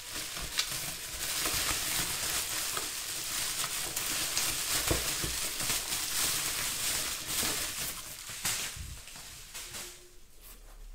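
Plastic bubble wrap crinkling and crackling as it is handled and pulled off a shock absorber, dying down near the end.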